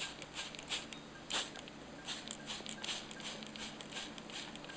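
A corella being misted with a water spray bottle: irregular soft rustles and short hissing spritzes, the strongest about a second and a half in.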